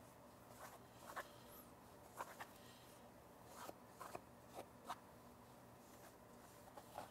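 Faint, short scuffs of a small pad wiping over the metal hat of a brake rotor, a handful of separate strokes over near-silent room tone.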